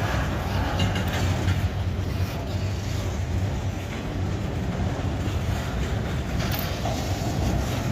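Freight train cars rolling past on the rails, a steady low rumble with faint clicks and rattles from the wheels and cars.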